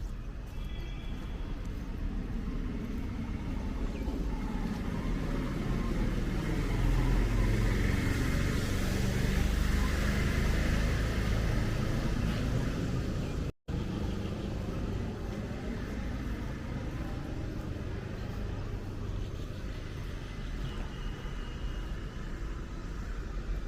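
Road traffic: a steady rumble of passing vehicles, swelling as a car goes by about a third of the way in, with tyre hiss on the wet road. The sound cuts out for an instant just past halfway.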